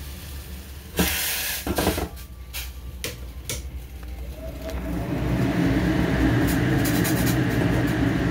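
A few sharp rustles and knocks in the first few seconds, then a saucepan of coffee and sugared water on a gas burner coming to the boil: a steady bubbling rumble that builds up from about halfway through.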